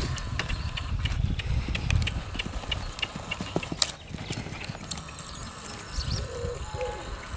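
Pony's hoofbeats in a sand arena, soft thuds with scattered sharp clicks. A pigeon starts cooing about six seconds in.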